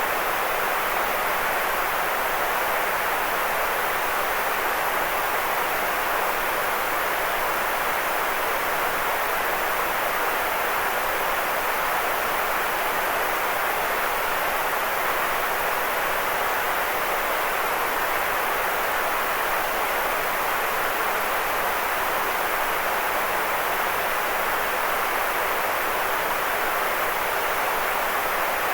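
Steady, unchanging white noise for sleep: an even hiss that is fullest in the middle range and thinner in the bass and the highest treble.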